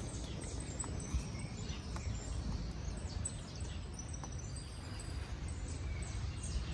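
Faint birds chirping over a low, steady rumble of outdoor ambience.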